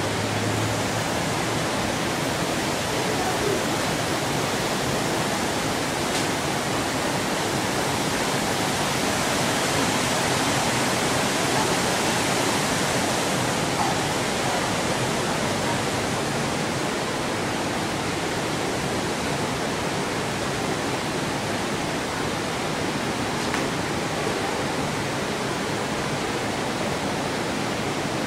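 Creek water rushing over rocky shoals: a steady, even hiss that swells slightly in the middle.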